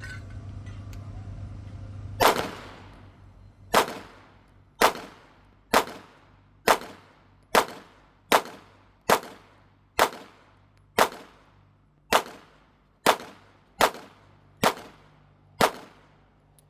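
Smith & Wesson M&P 9mm pistol with a threaded barrel and compensator, fired fifteen times at a steady pace of about one shot a second, emptying a 15-round magazine of 124-grain ammunition. Each shot is sharp and rings briefly. The first shot comes about two seconds in.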